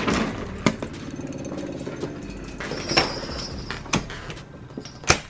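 Paper takeout bag being picked up and handled, its paper crinkling, with several sharp knocks, the loudest near the end, over a faint low hum.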